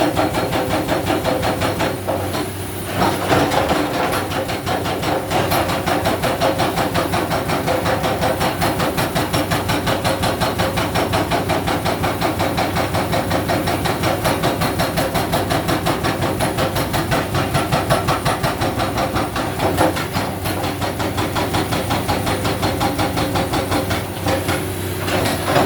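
Excavator-mounted hydraulic breaker hammering rock in rapid, steady blows, over the excavator's diesel engine. It pauses briefly about two and a half seconds in and again near the end.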